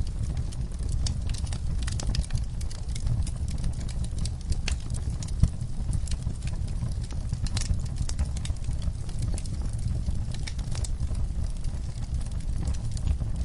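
Rain ambience: a steady low rumble with many scattered, irregular sharp taps and clicks of drops.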